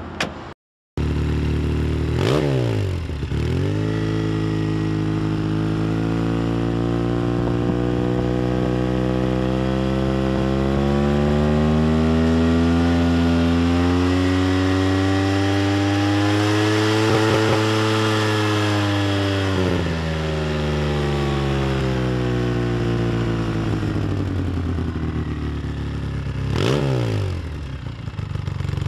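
Polaris RZR engine running through an aftermarket AC Racing slip-on exhaust: idling, blipped quickly about two seconds in, then revved slowly up and held high before dropping back to idle, with another quick blip near the end.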